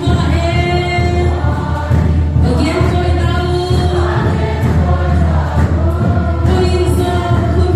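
A group of voices singing a Christian praise song together in long held notes, over a steady deep bass accompaniment.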